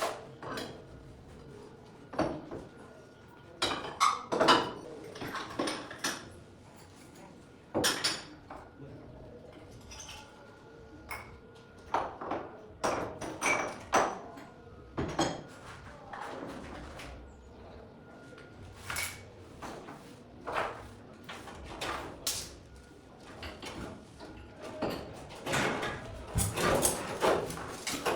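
Irregular knocks and clatter, one every second or two, with a louder cluster near the end, typical of hands-on cleanup work with tools and debris.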